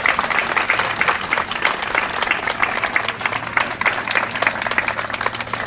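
Audience applauding, with individual hand claps standing out in the clapping.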